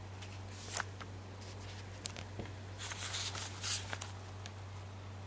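Short rustles and scrapes of paper as a notebook is handled, the loudest about three to four seconds in, over a steady low hum.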